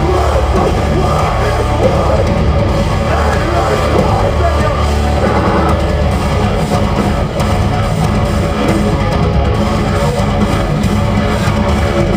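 Metalcore band playing live at full volume: heavy distorted electric guitars over a pounding drum kit, heard from the audience in a concert hall.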